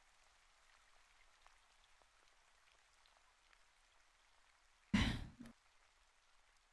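Faint steady hiss. About five seconds in, a woman makes one short breathy throat sound lasting about half a second.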